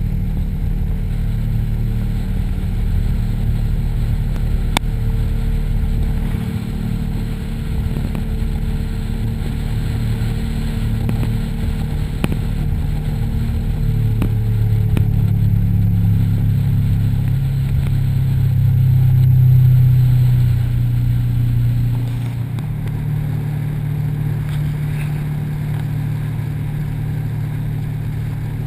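Dive boat's engine running under way, its low steady note growing louder from about halfway through, peaking, then settling a little lower as the boat runs at speed with water rushing along the hull.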